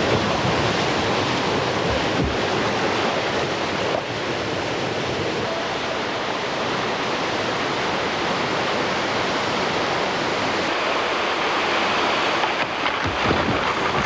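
Steady rushing of a waterfall's falling water.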